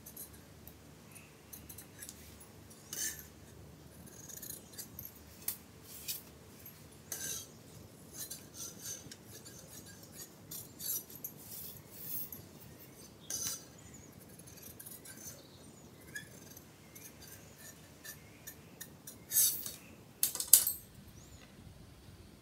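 Tailoring scissors cutting cloth: irregular, crisp snips with short pauses between them. Two louder clicks come a few seconds before the end.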